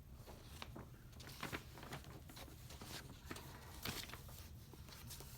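Paper and card being handled: a run of light rustles and small taps over a steady low hum, as folded album inserts are turned and shown.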